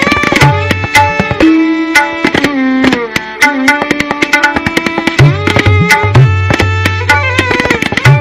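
Tabla solo: fast, dense strokes on the tabla pair, with violin accompaniment whose notes slide between pitches. Deep bayan strokes with upward pitch bends come in from about five seconds in.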